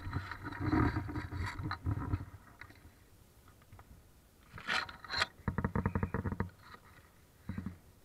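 RC rock crawler climbing over loose gravel and rock: its small motor and gears whirring while tyres and chassis scrape on the stones. A sharp scrape comes about five seconds in, followed by a rapid rattle of clicks lasting about a second, and a shorter rattle near the end.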